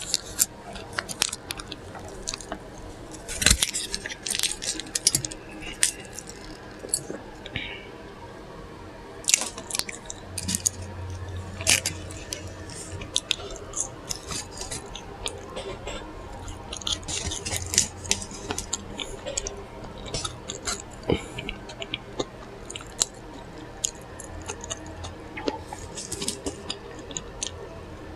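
Close-up eating sounds: a burger being chewed with wet mouth smacks and many small clicks, at an irregular pace. A low hum comes in about ten seconds in and fades out some eight seconds later.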